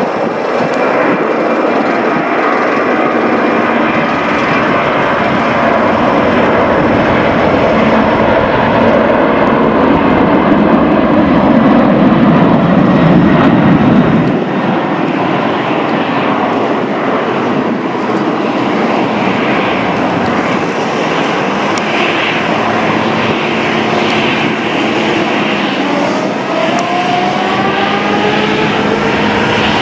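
Boeing 747-400's four turbofan jet engines at take-off power, a loud roar that builds to a peak about twelve to fourteen seconds in and then drops off suddenly as the jet passes. Near the end a rising whine joins the steady engine noise.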